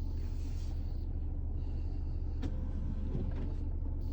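Steady low rumble of a car's idling engine heard inside the cabin, with a faint click about two and a half seconds in.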